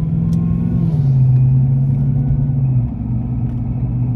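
Car engine and road noise heard inside the cabin while driving: a steady low hum whose pitch drops about a second in, and which eases a little near three seconds.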